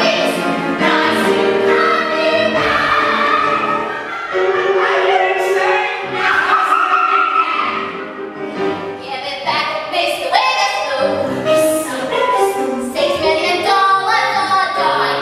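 Several voices singing together in a stage musical number, a cast of singers carrying a show tune without a break.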